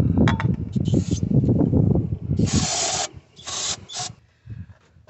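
Aerosol can of carb and air intake cleaner spraying in short hissing bursts into the EGR ports on the intake manifold, the longest lasting about half a second. The bursts come mostly in the second half, after a louder stretch of rubbing and knocking from hands and the can being handled.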